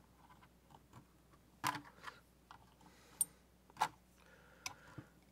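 Faint, scattered clicks and taps, about five in all and loudest a little past the middle, from a steel washer being pressed into a cement-filled plastic nozzle mold and a short piece of PVC pipe being handled.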